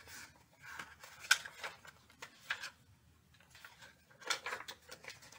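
Short crisp rustles and scrapes of a paper picture book being handled and opened, its cover and pages rubbing, with the loudest scrape about a second in and a small cluster near the end.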